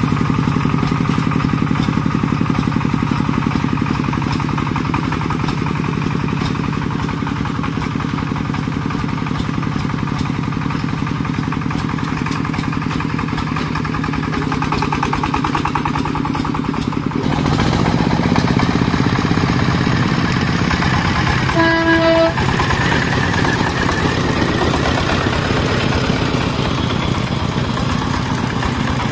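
Single-cylinder diesel engine of a công nông farm truck running steadily with a fast, even beat; its sound changes about 17 seconds in. A short horn toot of about half a second sounds a little over 20 seconds in.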